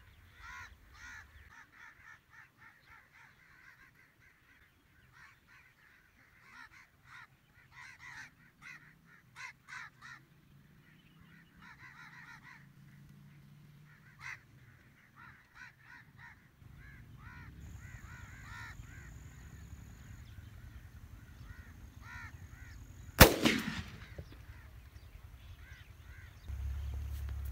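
Birds calling in short chirps throughout, then a single loud shotgun shot about 23 seconds in, with a short echo. A low steady rumble comes in past the middle.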